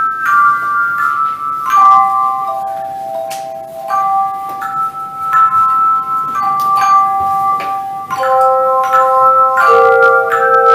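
Tone chimes played by an ensemble in a slow melody: each struck note rings on and overlaps the next, making soft chords, with lower notes joining in near the end.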